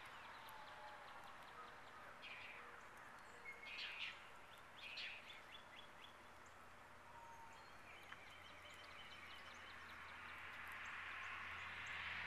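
Faint outdoor ambience with a few short bird chirps between about two and five seconds in, over a steady low hum. A hiss swells gradually toward the end.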